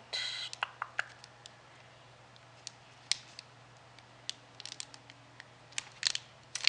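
Plastic snack wrapper being handled: a short crinkle at the start, then scattered light crackles and clicks that come thicker near the end, over a steady low hum.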